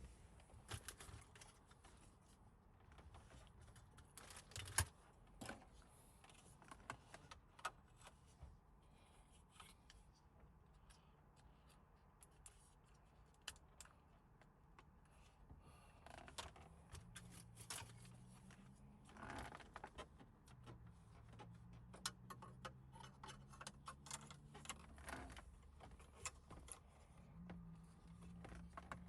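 Faint scattered clicks and light rattles of plastic dashboard trim and hand tools being handled as the dash is put back together, with a sharper click about five seconds in. A faint low hum joins about halfway through.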